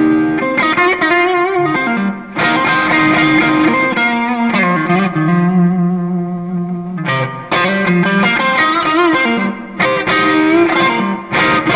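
Electric guitar lead played on a Fender Stratocaster Deluxe Roadhouse's noiseless neck pickup, running direct through a Valeton GP-100 multi-effects unit. Picked melodic phrases mix with held, bent notes with vibrato, one note sustained for about two and a half seconds in the middle.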